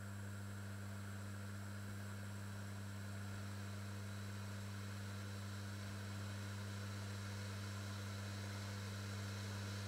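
Steady low electrical hum with a faint high whine over hiss, as from an induction hob running under a stainless steel tray.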